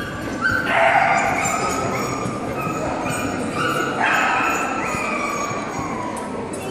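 Dachshunds yelping and whining: high, drawn-out cries in two main bouts, about a second in and about four seconds in, with a last cry sliding down in pitch near the end.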